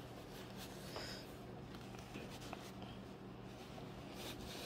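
Faint rustling of a nylon rain jacket's fabric, with small scattered clicks as its zipper is worked by hand without catching.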